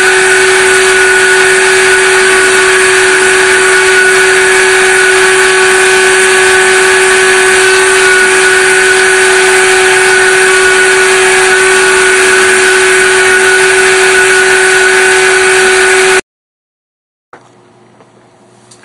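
Name Jewelry Solution 2 jewelry CNC machine running while it cuts a nameplate: a loud, steady whine with a lower hum beneath it over an even hiss. It stops abruptly near the end.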